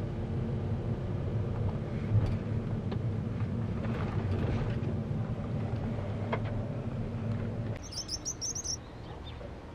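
Steady low rumble of a car's engine and tyres heard inside the moving car's cabin. It stops abruptly near the end, giving way to a brief run of high bird chirps over quieter outdoor ambience.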